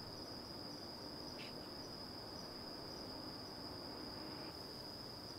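Crickets trilling in one steady, high-pitched note.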